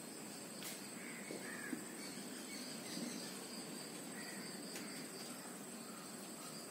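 Faint outdoor ambience: a steady high-pitched insect drone, with a few short distant bird calls and occasional faint clicks.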